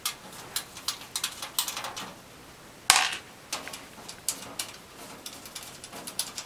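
Irregular sharp metallic clicks and taps from handling the screws on the back of a desktop computer's sheet-metal case, with one louder clack about three seconds in.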